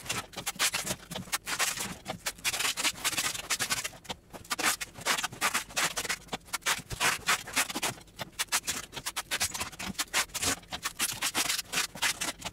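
Black packing tape being stripped off the roll and rubbed down onto a cardboard box, a fast, uneven run of rasping rips and scrapes with brief pauses.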